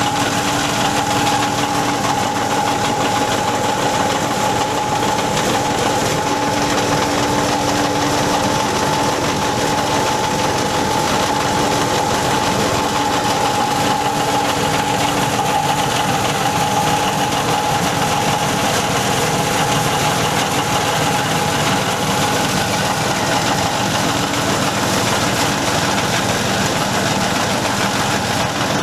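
Foam and fabric shredding machine running steadily, its motor and cutters giving a continuous mechanical noise with a steady whine.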